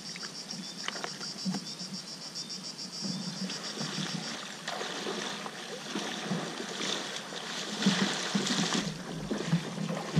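Legs wading and splashing through shallow river water, starting about halfway through and getting louder near the end. In the first half, an insect chirps in a fast, even pulse, then fades.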